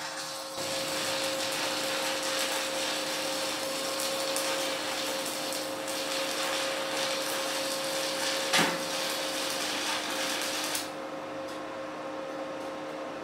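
Stick (MMA) welding arc crackling steadily as a 2.6 mm electrode burns at 100 amps from an inverter welder, with one sharper crack partway through; the arc strikes about half a second in and stops a little before the end, leaving a steady hum. The welder judges 100 amps too much for this rod.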